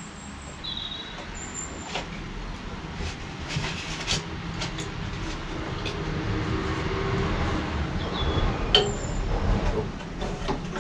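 Belt-driven drill press running, a steady motor-and-belt hum that slowly grows louder over several seconds, with a few sharp clicks and knocks.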